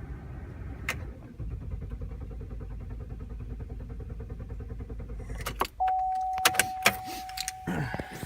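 GMC Acadia engine cranking on the starter without catching: the car cranks but won't start. The cranking stops suddenly about five and a half seconds in. It is followed by several sharp clicks and a steady electronic warning chime that lasts about two and a half seconds.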